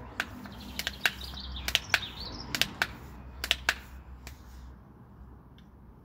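Bicycle pump inflating a bike tyre, its strokes clicking in pairs about once a second with a hiss of air. The clicking stops after about four seconds.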